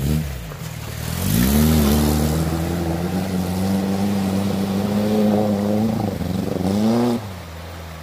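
Volkswagen Baja Bug's air-cooled flat-four engine revving hard under load as the car ploughs through a flooded creek. The revs climb about a second in and hold high, dip and climb once more, then the sound falls away sharply near the end.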